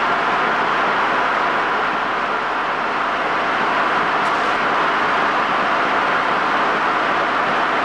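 A circular sawmill running: the large saw blade spinning with its drive belts and pulleys, making a steady, even mechanical noise throughout.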